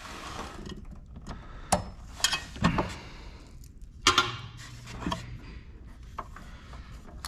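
Hand tools and parts clinking and knocking in a few sharp strikes while work is done on the car, with a short low hum for about a second midway.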